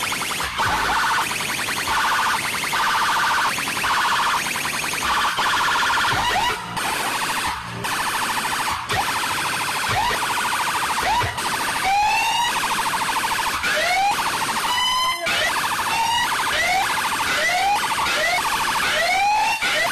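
A siren-like electronic effect blasted through a large DJ sound system. In the first half it is a pulsing, chopped tone; from about halfway on it becomes a quick, regular run of rising whoops.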